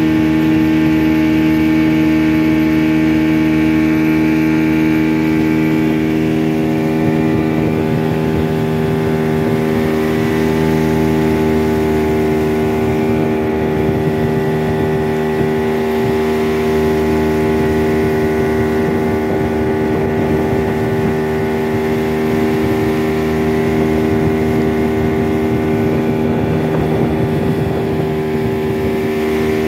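Motorboat engine running steadily under way, holding an even pitch.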